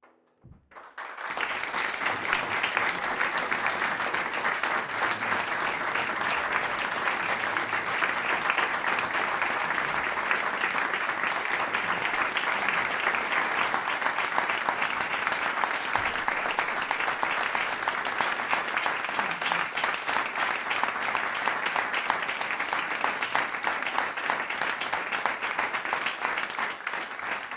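Audience applauding, the clapping building within about a second and then holding steady.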